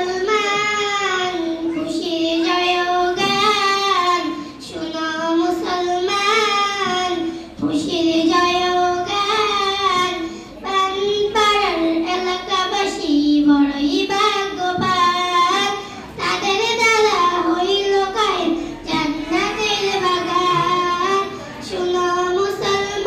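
A young girl singing an Islamic song alone into a microphone, with no instruments, in sung phrases broken by short pauses for breath.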